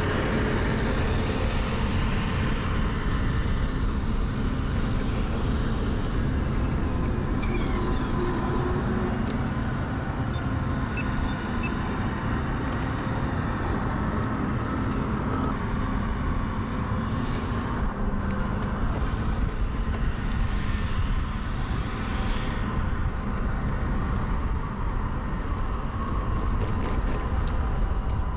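Riding noise from an early-1970s Peugeot UJ-10 ten-speed bicycle under way: a steady rush and low rumble of wind on the bike-mounted camera's microphone over the sound of the tyres rolling.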